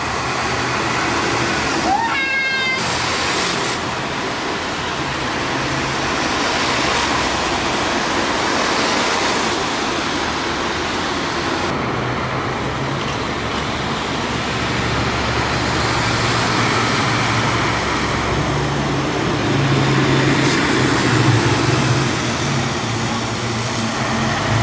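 Road traffic on a wet street: a steady hiss of tyres with a bus engine running as the bus drives past, strongest in the second half. About two seconds in, a brief high squeal rises in pitch.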